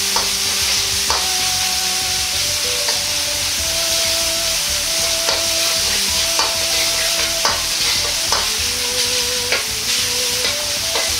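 Ground pork sizzling in a hot wok as it is stir-fried to brown it through, with a metal ladle scraping and clicking against the pan every second or so.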